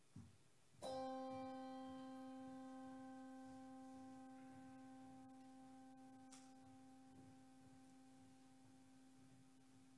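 A handbell struck once about a second in, ringing one clear note that slowly fades, tolled in remembrance after a name is read.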